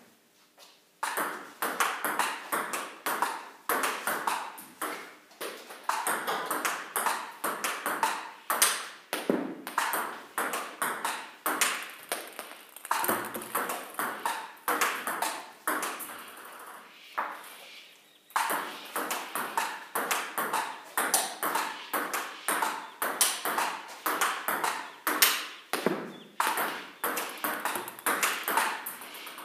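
Table tennis balls clicking off paddles and bouncing on the table in quick succession during backhand practice, with a brief pause about two-thirds of the way through.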